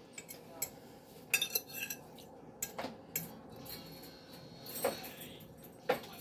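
Metal fork clinking and scraping against a plate: scattered sharp clicks, with a quick cluster of them about a second and a half in and single louder clinks near the end.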